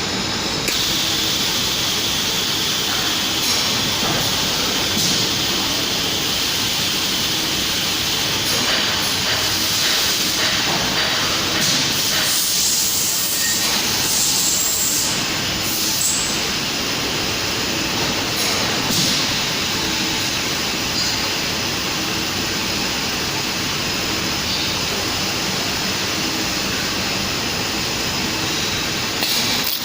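Fabric welding machine for roller blinds running, giving off a steady mechanical noise with a constant hiss.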